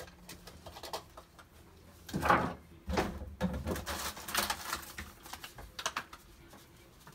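Makeup items being picked through in an open vanity drawer: scattered clicks and rattles of cases and tools, louder about two seconds in and again a little later.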